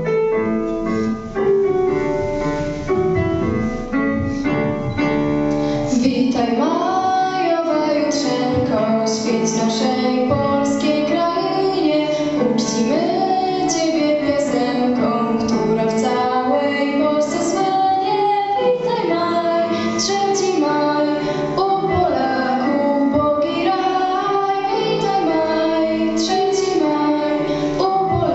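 A song with instrumental accompaniment: about six seconds of instrumental introduction, then a child's voice begins singing the melody over it.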